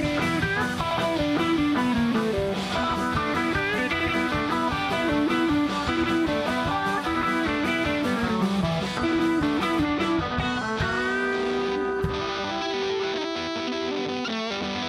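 Live rock band playing an instrumental passage: electric guitars play busy melodic lines over bass and drums. Near the end the drums and cymbals drop away and one long note is held.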